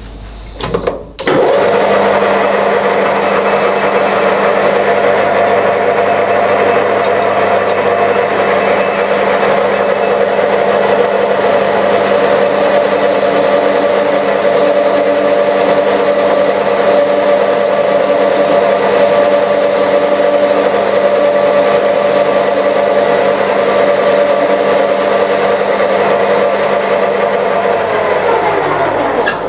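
Electric motor of a workshop machine tool switched on with a click, running steadily at speed with a constant whine, then winding down in pitch as it is switched off near the end.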